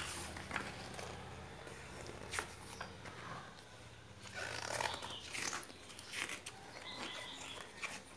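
Glossy pages of a thick photobook being turned and handled, with short rustles and flaps of paper. Under it, a low engine hum from a passing vehicle stops about four and a half seconds in, and an animal cries out in the background around the same time.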